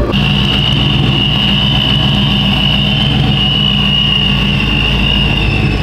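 Car engine running steadily at idle, with a high, steady whine above it that sinks slightly in pitch.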